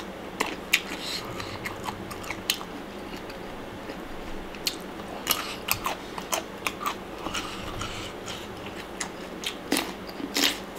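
Close-up chewing of a mouthful of Thai pounded salad with blanched shrimp, sator beans and raw vegetables: irregular crisp crunches and mouth clicks, with a louder cluster of crunches near the end as another bite goes in.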